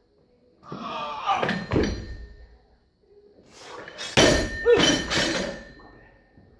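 Barbell loaded with rubber bumper plates, clanking as it is lifted about a second in; about four seconds in it is dropped to the floor with a loud thud and bounces a couple more times before settling.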